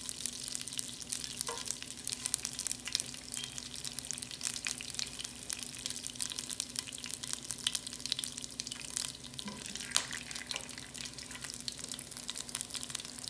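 Cumin seeds and whole dry spices sizzling in a hot pan, with a dense run of small crackling pops and a few louder ones, over a steady low hum.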